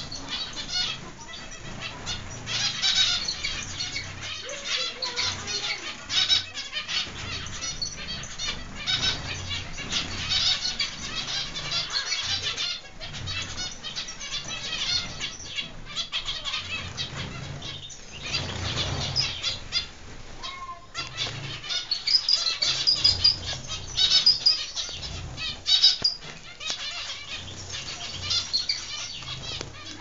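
A flock of zebra finches in an aviary giving many short high chirping calls, with wings flapping as birds fly about.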